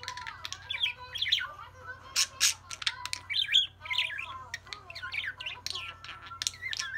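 Budgerigar warbling: a fast, continuous chatter of chirps, clicks and short squawks.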